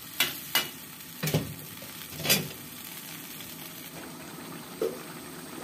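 Watery chili sambal simmering in a wok with a steady low bubbling, and four sharp knocks of a metal spatula against the wok in the first two and a half seconds.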